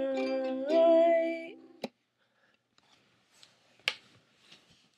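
A ukulele chord ringing under a woman's voice holding a sung note that rises in pitch about half a second in, cut off abruptly a little before two seconds. After that it is mostly quiet, with faint handling clicks and one sharper tick.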